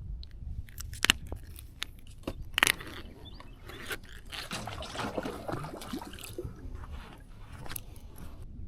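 Handling noises: a few sharp clicks and knocks, with a stretch of scraping and rustling in the middle.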